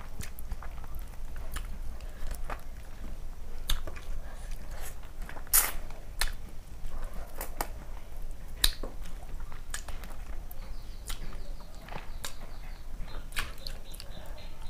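Close-miked chewing and eating by hand: irregular wet mouth clicks and lip smacks, with fingers squishing rice and curry on a steel plate.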